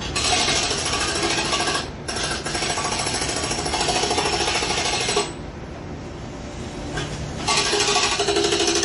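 Jackhammer hammering in loud runs: a short break about two seconds in, then a lull of about two seconds in the middle before it starts again near the end.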